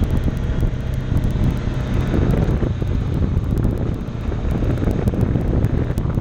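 Side-by-side utility vehicle's engine running steadily as it drives along a gravel dirt road, heard from the open cab, with wind on the microphone.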